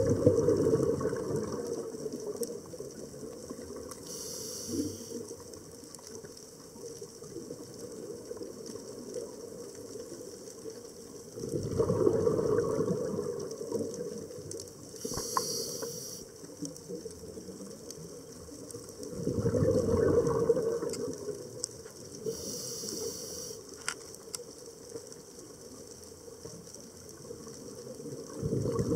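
Scuba diver breathing through a demand regulator underwater: a short hiss of air on each inhale, then a louder rush of exhaled bubbles. Three slow breaths, about eight seconds apart.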